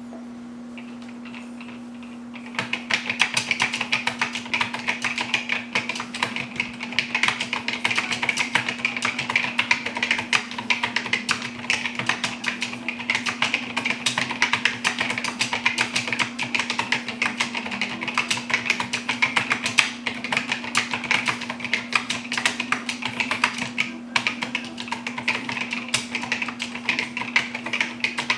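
Fast typing on a Fortune Systems keyboard with Digitran capacitive switches: a dense run of key clicks that starts about two and a half seconds in, with a brief pause near the end. A steady low hum runs underneath.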